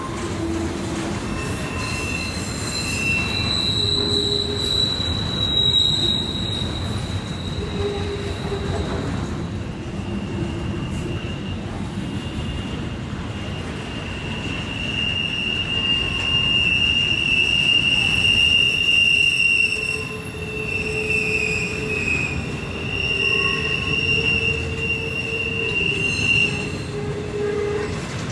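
Freight train cars rolling past over a steady rumble, with wheel squeal in several high tones that come and go and shift in pitch.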